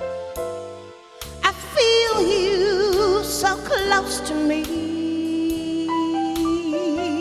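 Slow ballad music in an instrumental passage. Separate struck notes sound at first, then from about a second and a half in a sustained lead melody with wide vibrato takes over.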